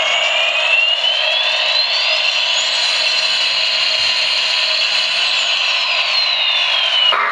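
Battery toy airliner's electronic jet-engine sound effect from its small built-in speaker: a steady whooshing hiss with a whine that rises in pitch, holds high, then falls again. It breaks off just before the end.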